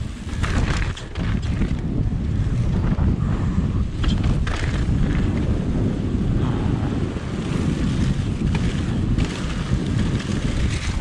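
Mountain bike rolling fast over a wooden slatted boardwalk, tyres and frame rattling, with heavy wind rush on the chest-mounted action camera's microphone and a few sharp knocks from the bike.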